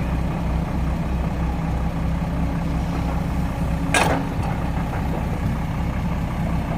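Heavy diesel engine idling steadily with an even low throb, with one short sharp hiss about four seconds in.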